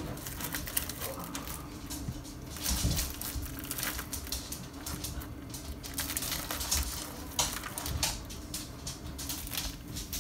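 Plastic hot dog package crinkling and crackling as the hot dogs are pulled out and laid on a plastic cutting board, with irregular light clicks and taps throughout.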